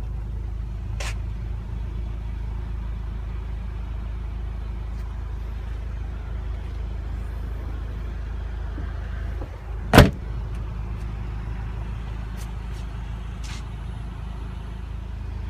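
The Audi TT's rear hatch slams shut once, a single sharp thump about ten seconds in, over a steady low hum.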